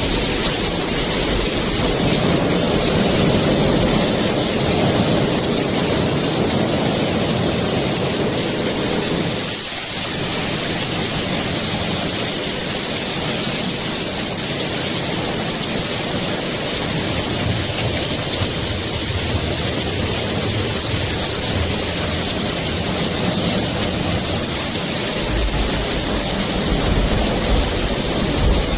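Heavy rain falling steadily in a dense hiss, with low thunder rumbling through the first few seconds and again near the end.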